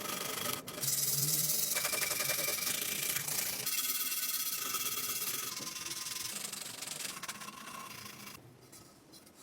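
Abrasive rubbing on a part of an old kerosene stove during restoration, in short stretches that change abruptly, dying away in the last second.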